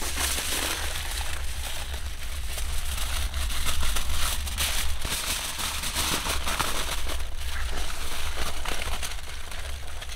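Aluminium foil being crumpled and pressed by hand around a motorcycle exhaust silencer: a dense, irregular crinkling and crackling, over a low steady rumble.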